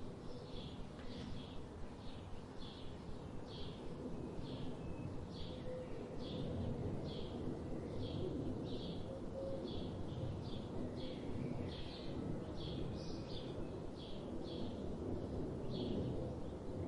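A songbird calling over and over in short chirps, about one and a half a second, over a steady rushing of river water.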